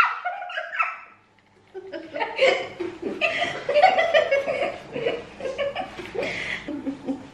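Two young people laughing together in breathy, giggling bursts, starting after a short pause about a second and a half in.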